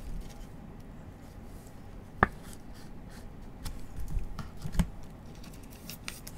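Gloved hands handling baseball cards in rigid plastic top loaders. A sharp plastic click comes about two seconds in, then a few soft knocks as the holders are set down on the table.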